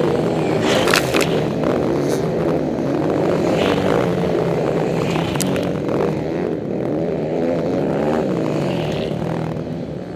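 Several motocross dirt bikes racing on the track, their engines revving up and down and overlapping, with a few sharp ticks.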